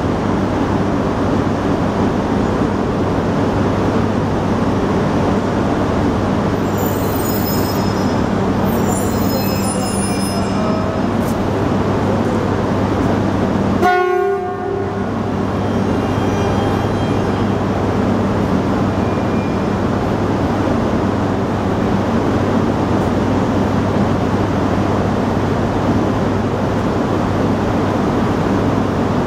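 E3 series Komachi Shinkansen train creeping into the platform to couple, with a steady low hum and high-pitched brake squeal between about 7 and 10 seconds in. After a short break in the sound, the steady hum of the stopped train goes on.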